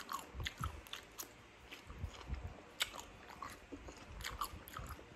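Close-up chewing of raw cucumber, with irregular crisp crunches as it is bitten and chewed.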